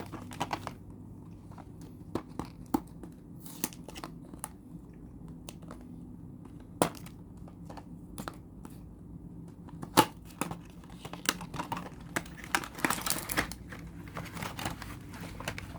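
A product box being opened and its packaging handled: scattered clicks and taps, two sharper knocks, and a longer crinkling, rustling stretch a couple of seconds before the end.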